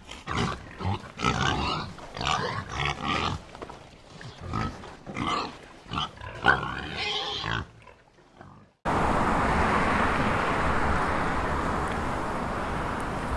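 Pig sound effect: a run of short pig calls, broken into chunks, for about nine seconds. It cuts off suddenly and steady street traffic noise follows.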